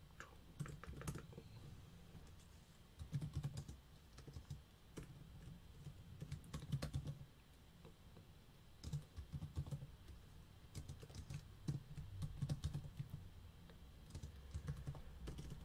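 Computer keyboard typing: runs of quick keystrokes with short pauses between them.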